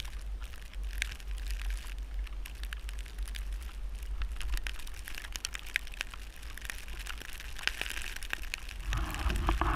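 Wind rumbling on the microphone in a snowstorm, with scattered crackling and crunching of snow throughout; a fuller, louder noise comes in near the end.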